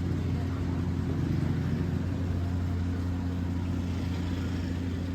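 Street traffic with a steady, low engine hum.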